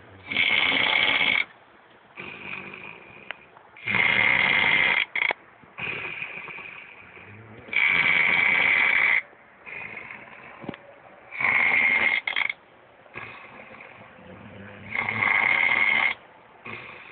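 A pit bull snoring in its sleep: five loud, rasping snores, each about a second long and coming every three and a half to four seconds, with softer breathing between them.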